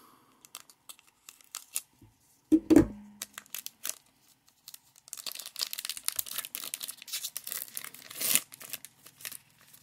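Foil wrapper of a sealed trading-card pack being slit, torn open and crinkled as the cards are pulled out, with a dense crackle in the second half. A single loud thump about two and a half seconds in.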